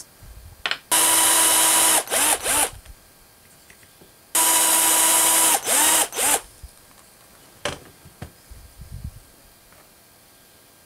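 Cordless drill boring eye sockets into a wooden lure body: two steady, whining runs of about a second each, the second about three seconds after the first, each followed by a couple of short blips of the trigger as the bit spins up and down.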